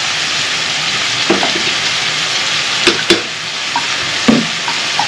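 Meat frying in a hot sauté pan: a steady sizzling hiss, with stirring and two sharp clicks of a utensil against the pan about three seconds in.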